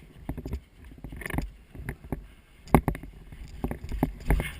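Irregular sharp clicks and knocks over a low rumble on the microphone, loudest in a cluster a little over halfway through.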